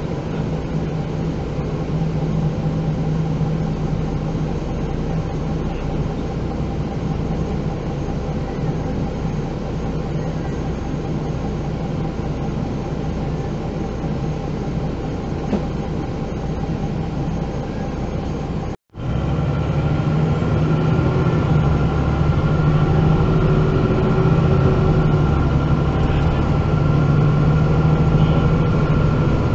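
MAN NG 313 articulated city bus engine running steadily, heard on board as a low drone. About two-thirds of the way through the sound cuts out for a split second; after that the engine is somewhat louder, with a steady higher whine over the drone.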